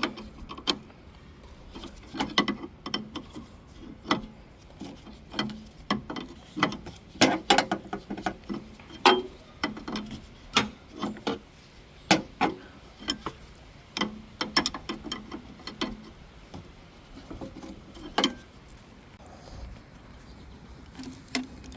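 Hand tools working on a car's suspension during a shock absorber change: irregular metallic clicks and clinks, some ringing briefly.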